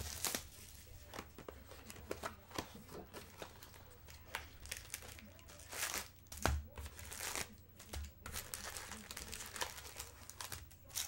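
Plastic wrap and foil trading-card packs from a box of 2014 Bowman Chrome crinkling and tearing as they are handled and opened, in a run of irregular crackles and short sharp snaps, loudest a little past the middle.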